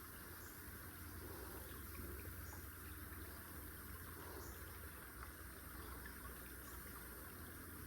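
Faint outdoor ambience: a steady high insect hiss over a low rumble, with soft short chirps about every two seconds.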